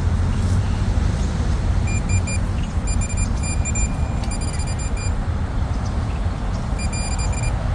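Metal detector sounding its target tone over a buried coin: short, high-pitched beeps in broken clusters as the coil passes over the spot, over a steady low rumble.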